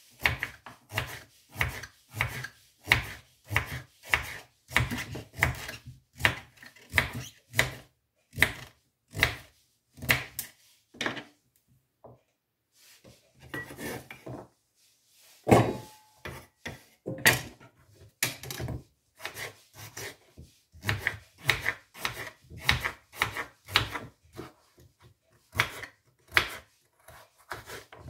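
A knife chopping raw pumpkin into cubes on a wooden cutting board, with repeated knocks of the blade on the board about two a second. There is a short lull and then a louder knock about halfway through.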